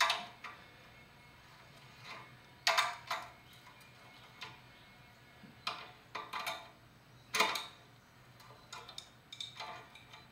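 Hand ratchet wrench clicking in short, irregular bursts of strokes as bolts are tightened at the back of an engine block to secure it to a test stand.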